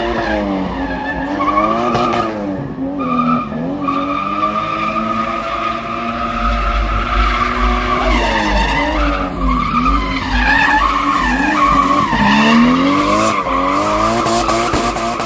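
A drift car's engine revving up and down over and over while its rear tyres squeal steadily, the car sliding sideways through a drift with the wheels spinning and smoking.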